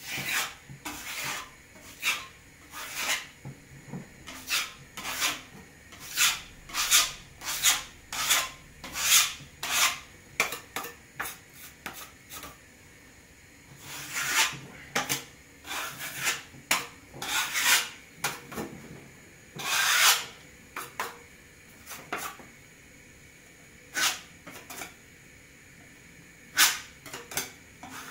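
A hand tool rasping over wall filler in short, irregular strokes. The strokes come in runs with brief pauses, and there is one longer stroke about two-thirds of the way through.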